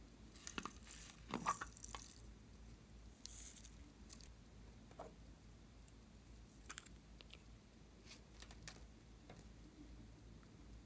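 Faint handling of small plastic toys and cases over a dish of foam beads: soft rustling and crinkling in the first couple of seconds, then scattered small plastic clicks as a tomato-shaped lip balm case is twisted open.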